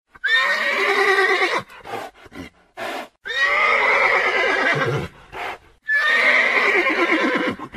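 Horse whinnying three times, each call about a second and a half long, with short scattered noises in the gaps between them.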